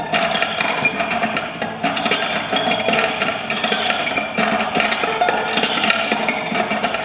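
Prepared acoustic guitar lying flat, its strings plucked and worked by hand with a metal chain lying across them, giving a dense, continuous run of rattling clicks and knocks over ringing string tones.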